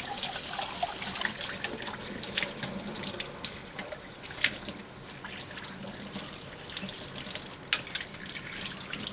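Kitchen tap running into a sink as stainless steel oil containers and lids are rinsed by hand, the water splashing off them, with scattered sharp clicks, the strongest about four and a half and seven and a half seconds in.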